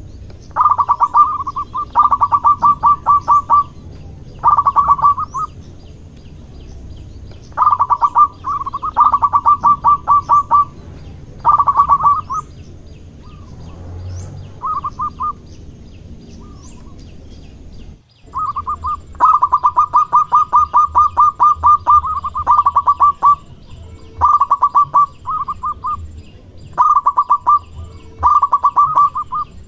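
Zebra dove (perkutut) singing: repeated phrases of quick staccato cooing notes, each phrase a fast run of pulses, with a longer lull of a few seconds around the middle.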